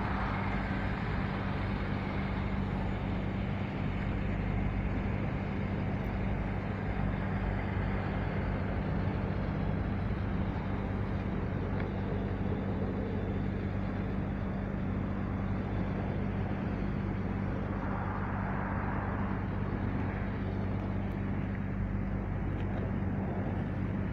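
Road traffic noise with a steady low engine hum underneath. Passing vehicles swell up briefly near the start and again about three-quarters of the way through.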